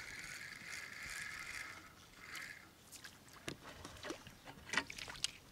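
Scattered knocks, clicks and light splashing in a small boat as a hooked crucian carp is brought in, after a steady high-pitched buzz over the first two seconds.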